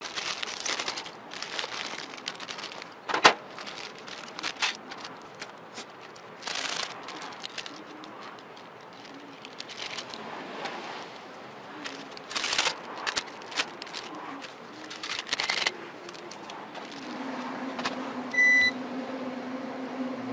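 Plastic seasoning packets crinkling and tearing open, with rustles and sharp taps against an aluminium foil tray. Near the end a steady low hum starts, followed by one short electronic beep.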